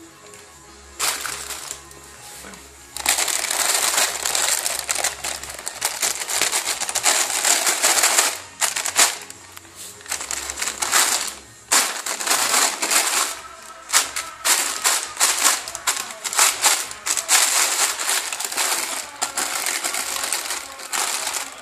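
Thin plastic carrier bag rustling and crinkling loudly as a hand scrunches it around a cat, in stretches broken by short pauses.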